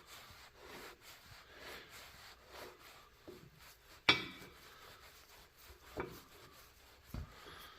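Hand tools working parts loose on a milling machine's knee: quiet rubbing and scraping, with one sharp clank about four seconds in and lighter knocks later.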